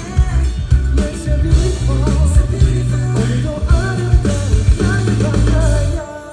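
Live band music, a pop-rock song with guitar and drums and a singing voice, played loud through festival speakers; the band stops sharply near the end.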